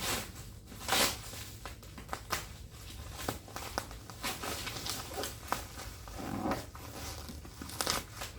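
Packaging being handled during an unboxing: irregular rustling, crinkling and light taps and knocks, with a louder rustle about a second in.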